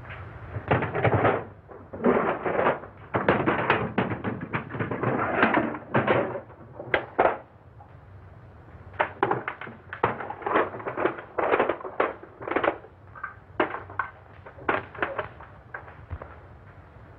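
Rummaging and clattering as objects are handled: a dense run of loud rustles and knocks, then a string of separate short, sharp clacks.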